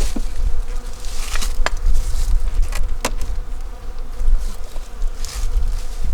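Honeybees buzzing around an opened hive, over a low rumble. Two sharp clicks come about a second and a half apart, with some rustling.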